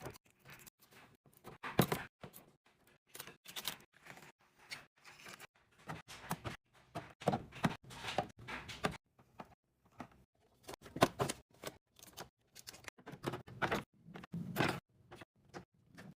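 Irregular clicks, taps and clatter of packaged snacks and drinks being handled and set down into drawers and fridge bins while restocking, with short pauses between. A few louder knocks come about two seconds in and again past the middle.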